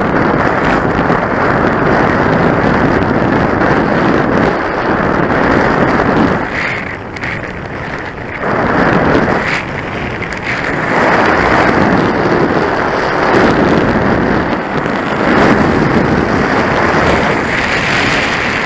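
Wind buffeting the microphone of a camera on a moving bicycle, with road rush underneath, swelling and easing in gusts and dropping to a brief lull about seven seconds in.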